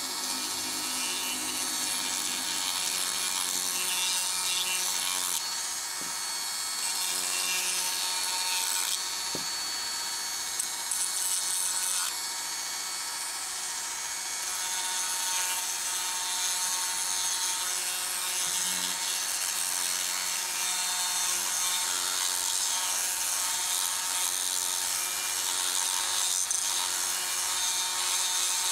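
Handheld rotary tool with a pink grinding-stone bit sanding a groove into a block of light wood: a steady high motor whine over a gritty rasp of the stone against the wood.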